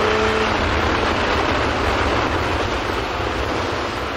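A Suzuki Bandit 1200S's inline-four engine note cuts off about half a second in as the throttle closes. What remains is a steady rush of wind and tyre hiss on a wet road, easing slightly.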